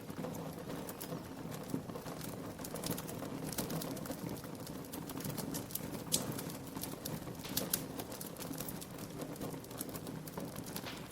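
Wood fire crackling in a fireplace: scattered sharp pops and snaps, a few louder ones about six and seven and a half seconds in, over a steady low rumble.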